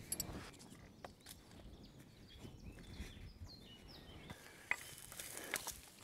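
Faint rustling and scattered light clicks of a webbing strap and rigging gear being handled, with one sharper click a little past three-quarters of the way through.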